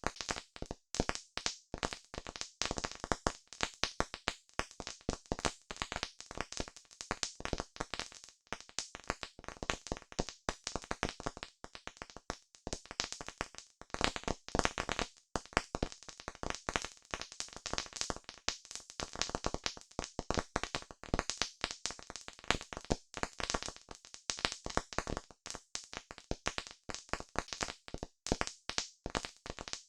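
Campfire crackling: a dense, irregular run of sharp pops and snaps from the burning wood.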